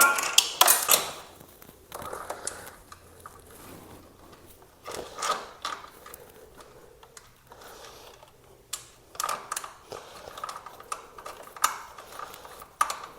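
Scattered light clicks, taps and rattles of hand tools and parts being handled while a motorcycle's front end and fairings are taken apart. The loudest clatter comes in the first second.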